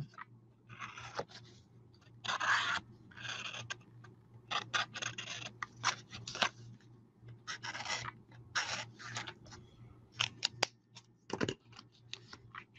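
Felt-tip marker drawn along the edges of a cardstock card in short, irregular scratchy strokes, with the card shifted about in the hands. A single duller knock near the end as the card is set down.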